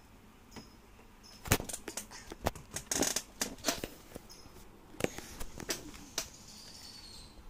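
Handling noise: a string of sharp clicks and knocks with a short rustle, the loudest knock about one and a half seconds in and a rustle around three seconds in.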